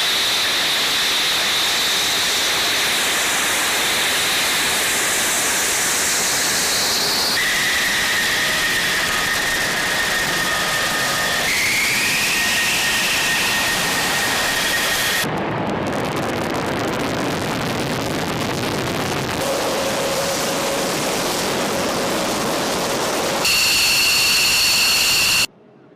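Military jet aircraft engines at takeoff power: a loud, steady roar with high-pitched turbine whines, one rising in pitch. The sound changes abruptly several times as one takeoff gives way to the next, and drops off sharply near the end.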